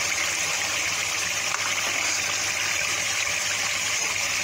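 A steady, even hiss with a faint low hum underneath: cooking noise from the pot of arvi gosht on the stove as it is stirred.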